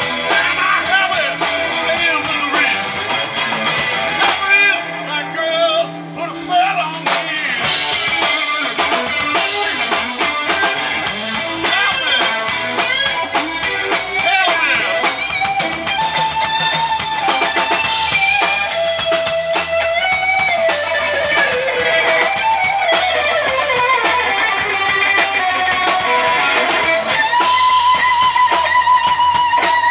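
Live blues band playing: an electric guitar takes the lead with bent, sustained notes over bass guitar and drums, ending on a long held note with vibrato.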